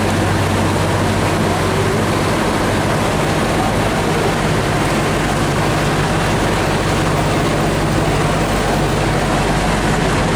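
An engine running steadily at constant speed, with a loud, even rushing noise over it.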